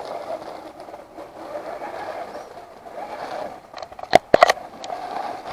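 Axial SCX10 II RC crawler's electric motor and gearbox whirring steadily as it drives, with a few sharp clicks about four seconds in.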